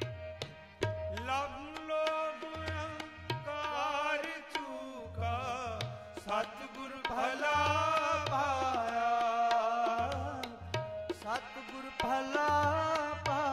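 Sikh shabad kirtan: tabla playing a steady rhythm with deep bass-drum thuds, under harmonium chords and a wavering sung melody line.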